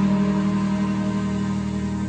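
Background music of held, steady notes, slowly growing quieter.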